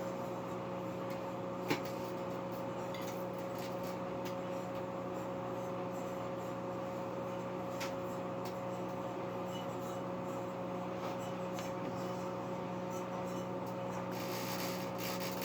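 Microwave oven running with a steady electrical hum, a high-pressure sodium bulb being microwaved inside it; one sharp click about two seconds in.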